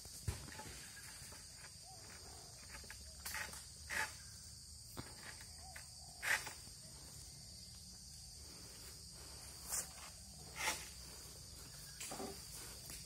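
Steady high-pitched drone of insects in a tropical oil palm plantation, with scattered short crackles and knocks a few seconds apart, stronger near the end.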